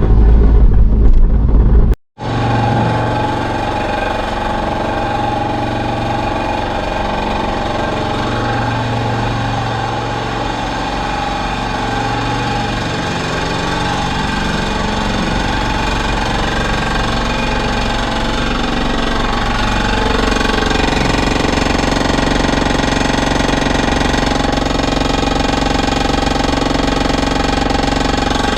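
Toyota Ractis engine idling steadily, recorded to check it for an abnormal noise. A loud low rumble plays for about the first two seconds, then cuts off abruptly before the idle begins.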